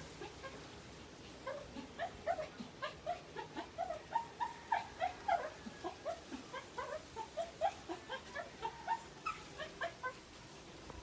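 A dog whimpering in a long run of short, high yelps, a few a second, starting about a second and a half in and stopping shortly before the end.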